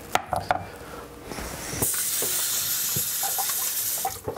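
A few light clicks, then a steady hiss that starts about two seconds in and stops just before the end.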